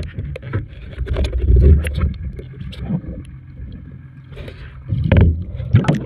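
A boat engine running steadily, with heavy low thuds about a second and a half in and again around five seconds in.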